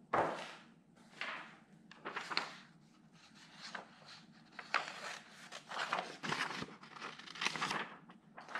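A sheet of paper rustling and crinkling in short, irregular bursts as it is handled.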